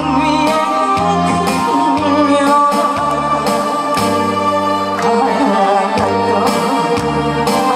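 A woman singing a song into a microphone over amplified backing music with a steady beat, a bass line and sustained keyboard chords; her voice wavers with vibrato on held notes.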